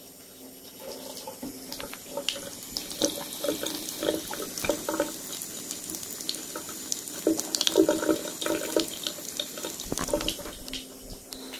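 Bathroom tap running in a thin stream, with irregular splashing as a cat laps water straight from the flow.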